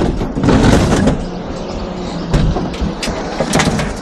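Scrap metal being lifted and loaded onto a truck bed: metal knocks and clatter with a few sharp bangs.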